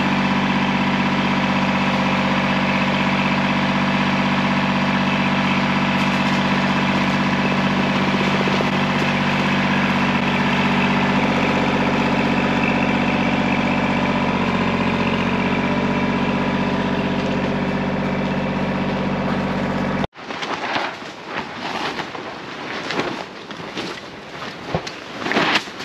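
Compact tractor engine running at a steady speed, cutting off abruptly about 20 seconds in. Gusty wind buffeting the microphone and a few knocks follow.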